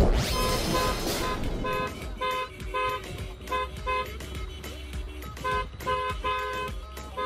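A whooshing transition sweep in the first second, then car horns honking over and over in short beeps grouped in a rhythm, the kind of celebratory honking heard from a car convoy.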